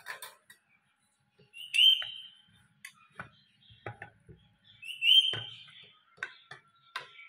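Two short, loud, high whistles about three and a half seconds apart, each sliding slightly upward in pitch, with a few light clicks and knocks between them and a faint steady tone near the end.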